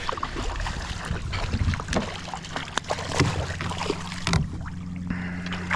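Scattered knocks and clicks of gear against a kayak hull while a hooked bass is being fought, over a steady low hum.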